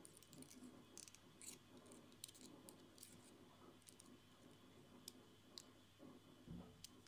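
Faint small metallic clicks and scrapes of a flathead screwdriver turning the post screws that clamp a coil's leads on a rebuildable dripping atomizer deck, with a soft low bump about six and a half seconds in.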